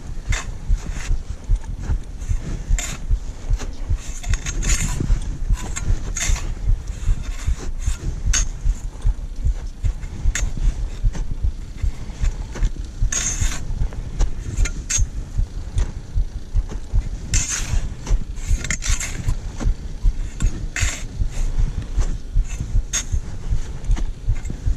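A climber's footsteps on snow, low thumps at an even walking pace of about two a second, with now and then a sharper crunch.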